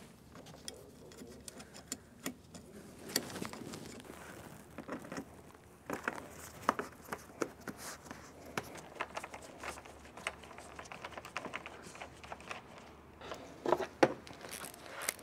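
Faint, irregular small clicks and rustles from gloved hands handling a bolt and the plastic cover panel of an AC refrigerant recovery machine, as the bolt is set into its hole.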